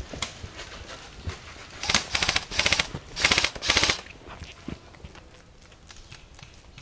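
Airsoft rifle firing on full auto: three short bursts of rapid shots in quick succession, about two seconds in.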